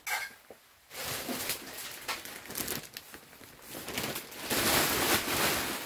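Plastic sack of planting soil crinkling as it is tipped up, with the soil pouring and pattering out of it. It starts about a second in and gets louder about four and a half seconds in.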